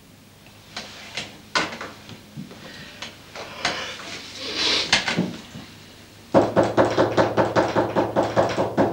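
A rapid run of knocks, about five a second, starting about two-thirds of the way in and going on to the end, most likely knocking on a door. Before it come a few scattered clicks and rustling.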